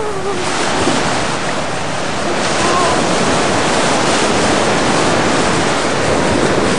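Ocean surf washing up the beach in a steady rushing noise, with wind buffeting the microphone.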